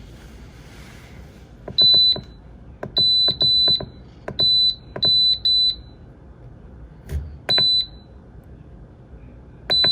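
Castle Serenity pellet stove's control panel keypad being pressed while programming the weekly schedule. Each button press gives a click and a short high beep, about eight in all, some in quick pairs and triples.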